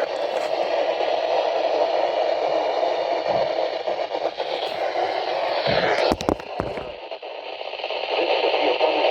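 Weather radio receiver hissing with static on a weak NOAA Weather Radio signal. A cluster of clicks and crackles comes about six seconds in, after which the hiss turns thinner.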